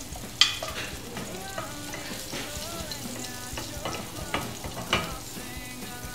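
Sliced chili padi sizzling in hot olive oil in a non-stick frying pan while a wooden spatula stirs them, with a sharp knock about half a second in and another near five seconds. Faint background music runs underneath.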